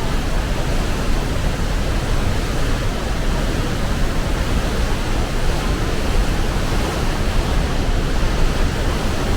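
Sunwapta Falls pouring into its rock canyon: a loud, steady rush of falling water.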